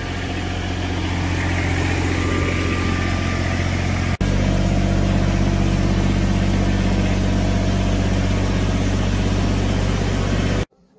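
An engine idling steadily, broken by a short cut about four seconds in.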